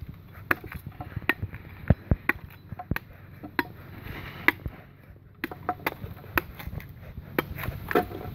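Knife blade chopping and hacking into tree bark and wood: a run of sharp, irregular strikes, with a short pause about five seconds in.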